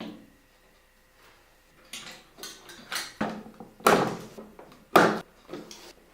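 Computer parts being handled during a build: an irregular run of knocks and rattles of hard objects, the two loudest about four and five seconds in.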